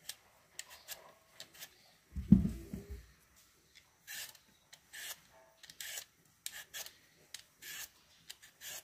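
A Y-shaped vegetable peeler scraping the skin off a raw potato in quick repeated short rasps, about two strokes a second. About two seconds in comes a brief low rumbling thump, the loudest sound.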